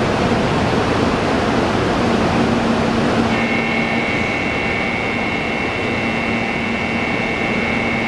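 An 800 series Shinkansen standing at the platform, with a steady hum from its air-conditioning and on-board equipment. About three seconds in, a steady high electronic warning tone starts and holds, signalling that the doors are closing before departure.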